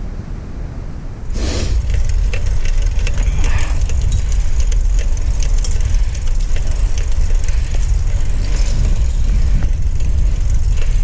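Steady low rumble of wind and road noise on the microphone while riding, with scattered rattling and clatter; it gets louder about a second and a half in.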